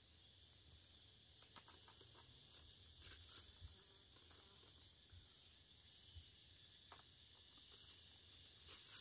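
Near silence: a faint steady high hiss with a few faint light clicks.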